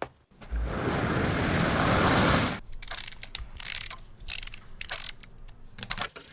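About two seconds of rushing noise, then a run of uneven mechanical ratcheting clicks.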